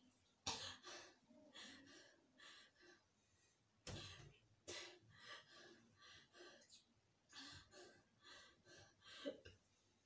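A person's faint gasping breaths and small coughs, short breathy puffs coming every half second or so, with two sharper ones about four seconds in.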